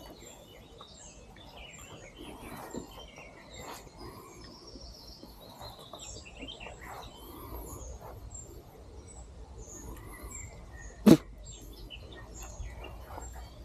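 Small songbirds chirping and twittering in the forest, short high calls scattered throughout. A single sharp knock about eleven seconds in stands out as the loudest sound.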